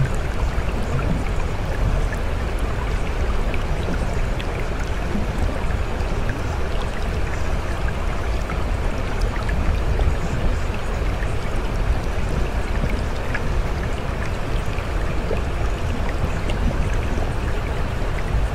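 Steady rushing of running water, with small drips and ticks scattered through it.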